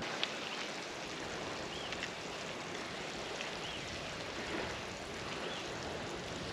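Steady rushing background noise, with a short high call, likely a small bird, repeating about every two seconds.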